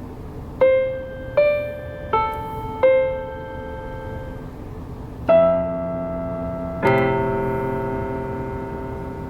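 A piano playing a slow melody: four single notes about a second apart, then two chords that are held and slowly fade, over a steady background hiss.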